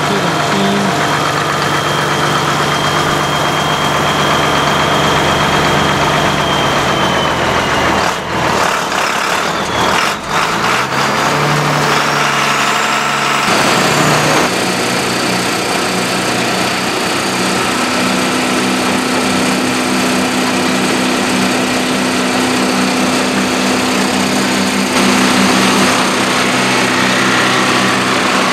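Lane LB-2500 tub grinder running, driven by its 325 hp John Deere diesel engine: a steady, loud engine sound under a dense mechanical din. It dips briefly twice, then shifts in tone about halfway through.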